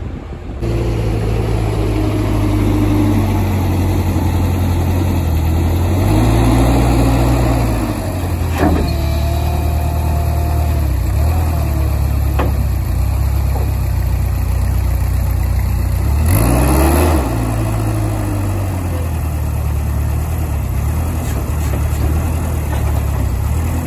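Moffett truck-mounted forklift's diesel engine running close by, revving up twice as it is mounted onto the back of the trailer, with a couple of short knocks.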